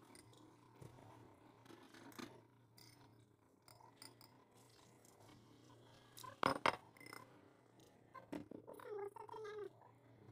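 Quiet eating sounds of soup being taken with metal spoons from bowls: light spoon clicks and a loud slurp about six and a half seconds in, over a steady low hum. A short wavering pitched sound comes near the end.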